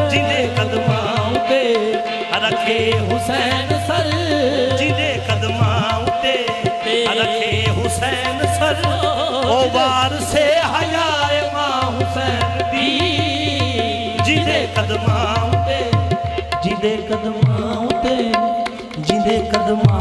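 Qawwali music: harmoniums sustain a steady drone note under tabla drumming and sharp claps, while a singer's voice glides through melodic runs without clear words.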